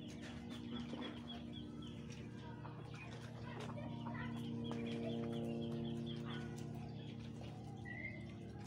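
Chickens clucking, with a quick run of short high peeps through the first few seconds and a low steady drone underneath.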